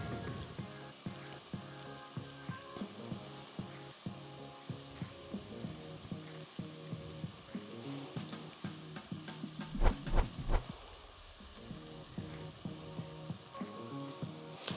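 Vegetables sizzling gently in oil in a cooking pot, a steady soft sizzle with small crackles, under quiet background music. A few knocks come about ten seconds in.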